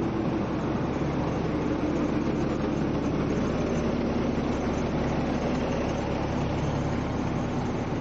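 Engine of a double-decker bus running close by, a steady low hum over road noise.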